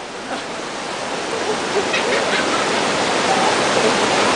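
Waterfall water rushing as a steady roar that grows gradually louder, with faint distant voices.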